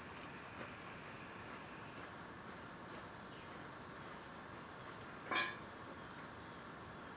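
Faint, steady high buzz of insects, with one short, louder sound with a ringing pitch about five seconds in.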